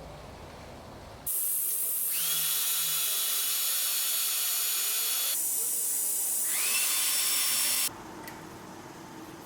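Power drill running: it starts abruptly, its motor whine rises as it spins up, then spins up a second time and cuts off suddenly.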